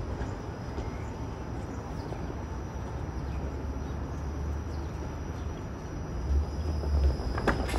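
TTC Flexity Outlook low-floor streetcar rolling slowly past, a low rumble that grows louder near the end, with a couple of sharp clicks as its wheels run over the track crossings.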